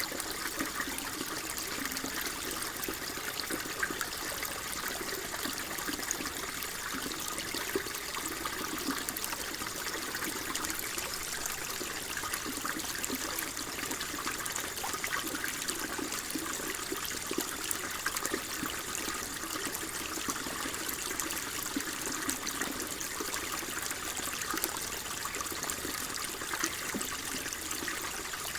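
Flowing water running steadily, an even, unbroken rush with fine splashing texture.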